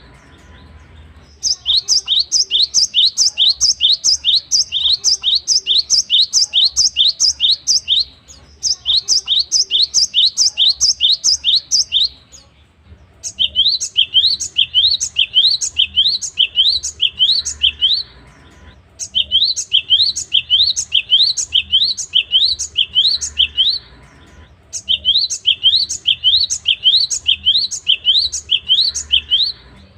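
Gelatik batu (cinereous tit) singing: loud, fast runs of rising, whistled notes, about four a second, in five bouts of several seconds each, broken by pauses of about a second.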